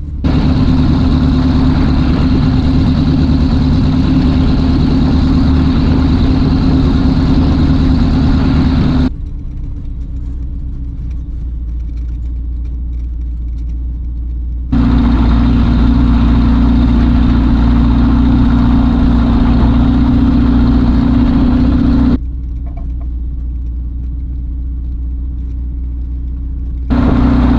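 BushCat light sport aircraft's engine running steadily during taxi, a steady hum with a strong drone. The sound cuts abruptly between a louder, brighter version and a duller, quieter hum: it drops about nine seconds in, comes back about fifteen seconds in, drops again past twenty-two seconds and returns near the end.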